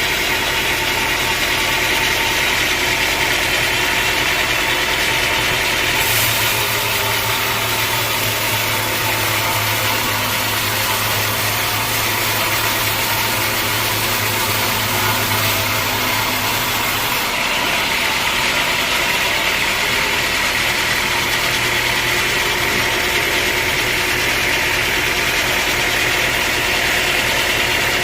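Sawmill machinery running steadily: a loud engine-like drone with a high hiss over it. From about six seconds in to about seventeen the hiss and a low hum grow stronger, then ease back.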